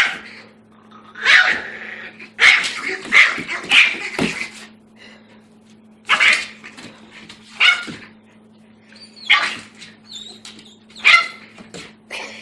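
A small puppy's high-pitched barks and yaps in short bursts every second or two, several close together about two to four seconds in: the puppy guarding its food bowl against a bigger dog.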